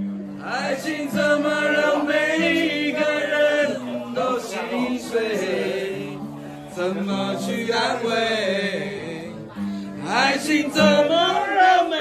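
A man singing long, wavering held notes while strumming chords on a round-backed acoustic guitar.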